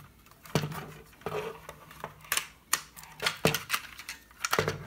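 Hard plastic clicks and knocks, irregular and sharp, as the two molded halves of a Traxxas TQi transmitter case are worked apart and handled.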